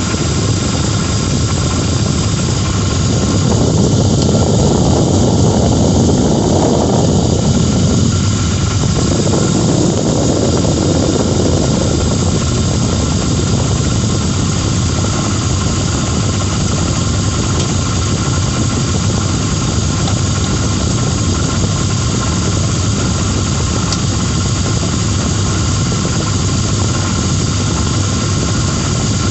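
2006 Lincoln Town Car's 4.6-litre V8 running with a steady high squeal and whir over the engine noise; the lower engine noise swells for a few seconds near the start. The owner takes the noise for a bad harmonic balancer.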